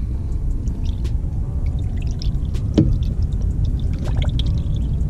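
Green 50-50 antifreeze coolant being poured from a plastic gallon jug into a car's radiator filler neck, refilling the cooling system after a thermostat replacement. One short knock nearly three seconds in.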